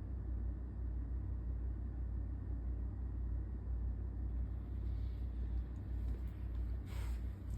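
Steady low rumble, with a brief scrape or rustle about seven seconds in.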